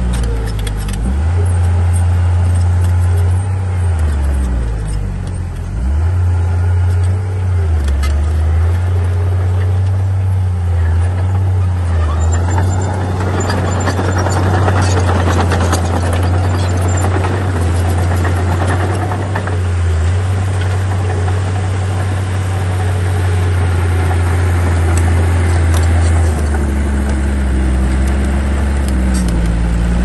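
Komatsu D37P crawler bulldozer's diesel engine running under working load, its low note dipping and recovering several times as it pushes earth. A stretch of extra clattering machine noise comes around the middle.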